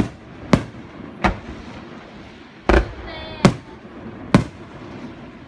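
Fireworks bursting: about six sharp, separate bangs at uneven intervals, over a steady background hiss.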